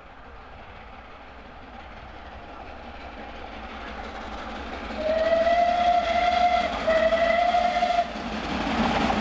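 Merchant Navy class steam locomotive 35028 'Clan Line' approaching at speed, its running noise growing steadily louder. About five seconds in its whistle sounds two long blasts close together, the first gliding slightly up in pitch as it starts. Then the rumble and clatter of the train swell as it comes close.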